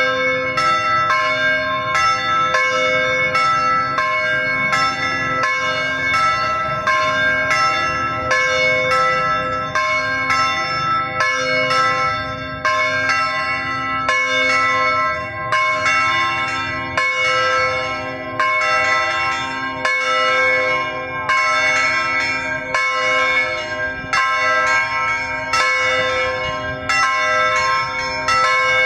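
A peal of several church bells, struck in a fast, even sequence of about two strikes a second, each stroke ringing on into the next.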